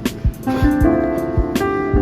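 Background music: plucked guitar and keys over a steady drum beat.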